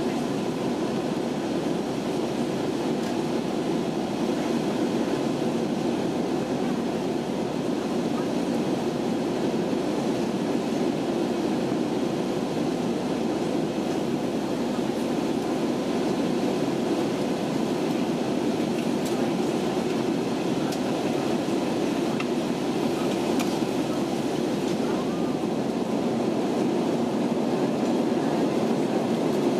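Steady cabin noise of an Airbus A320-200 in flight after takeoff, heard from inside at a window seat: the engines and the air rushing past the fuselage make one even, deep rush that neither rises nor falls.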